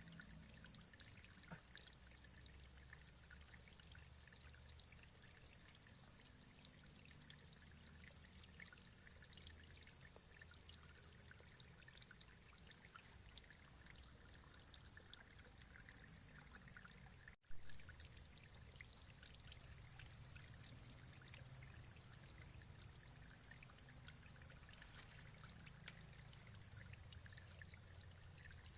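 Faint running water, steady and even, with small scattered drips and splashes. About two-thirds of the way through the sound cuts out for an instant and comes back with a click.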